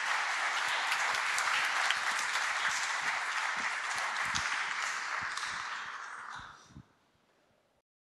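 Audience applauding after a talk: a dense, steady patter of many hands clapping, which dies away about six to seven seconds in.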